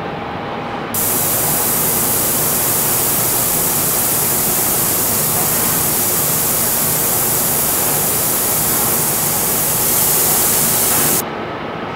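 Laser marking the end face of a metal thread roll: a loud steady hiss switches on about a second in and cuts off sharply about a second before the end, over a steady machine noise.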